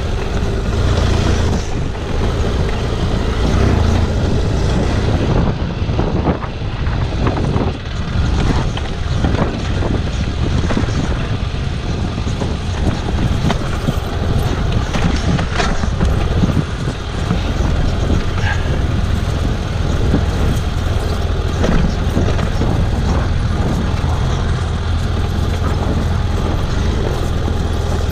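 BMW F800GS parallel-twin engine running with a steady low note while the motorcycle rides over a rocky dirt trail, with frequent knocks and rattles from the rough ground.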